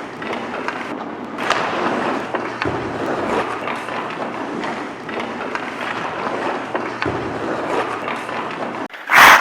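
Ice hockey skates scraping and carving on rink ice, with scattered clicks and knocks of sticks and pucks, and a short loud bang just before the end.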